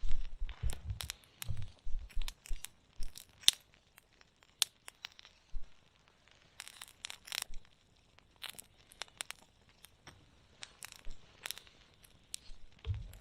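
Wood campfire crackling, with irregular sharp snaps and pops, some close together and some spaced out, and a few dull low thumps in the first couple of seconds.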